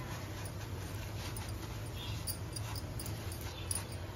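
Oiled paratha sizzling faintly on a hot tawa, with scattered small crackles of the oil over a steady low hum.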